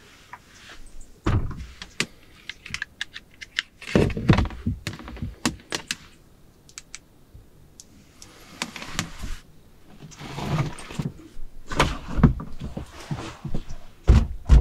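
Gear being handled inside a small plywood camper shell: scattered clicks and knocks with a few heavier thuds as things are moved and set down on the wooden shelf and a cable is handled, with two short bursts of rustling about halfway through.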